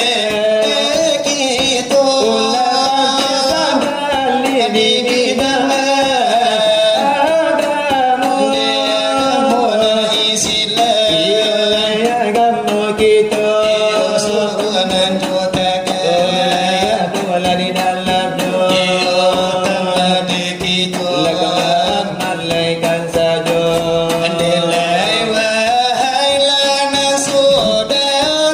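Selawat dulang: devotional Minangkabau chanting sung in long wavering melodic lines, over fast, continuous tapping on large brass trays (dulang).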